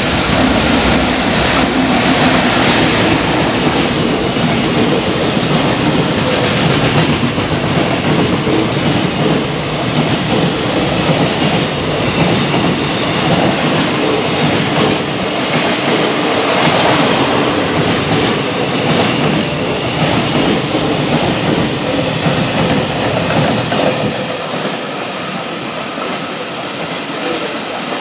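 An electric freight locomotive and a long line of container wagons pass at speed: a steady rumble of wheels on rail with repeated clickety-clack over the rail joints. It eases off near the end as the last wagons go by.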